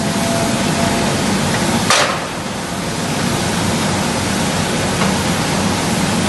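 Steady loud running noise of a SMERAL LKM 4000 hot forging press and forge-shop machinery, with one sharp metallic impact about two seconds in.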